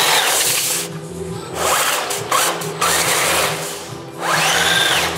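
Drivetrain of a loaded RC scale model truck whining as it drives: the pitch rises and falls as it speeds up and eases off, with a short lull a second in and another near four seconds, then climbs again and holds.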